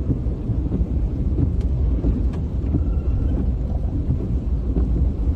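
A loud, rough low rumble with no clear pitch, holding steady throughout, with a few faint clicks on top.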